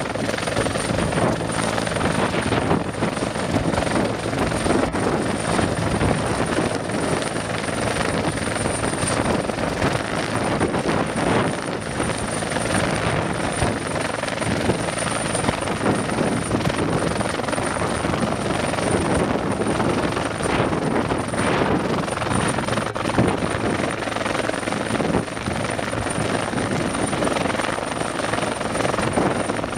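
Rescue helicopter hovering low during a hoist, its rotor beating steadily, with a thin high whine running throughout.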